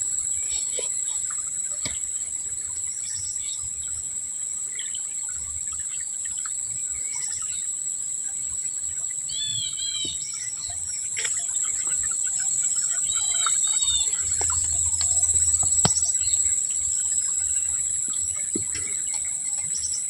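Insects droning steadily at a high pitch, with a bird giving two short runs of quick, arched chirps, about ten and about thirteen seconds in.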